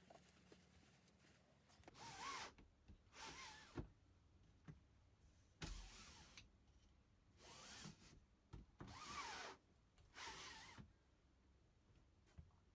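Caravan window roller blind and flyscreen being slid along their side tracks: about six short sliding swishes, each with a faint squeak.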